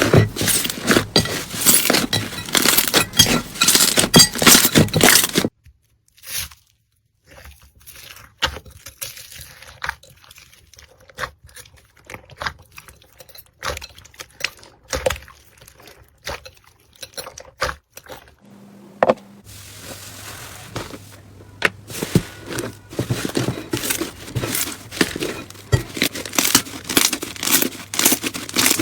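Crunchy slime being squeezed and worked by hand, a dense crackling and popping. It is loud for the first five seconds, then thins to sparse, quieter crackles, and grows dense again from about twenty seconds in.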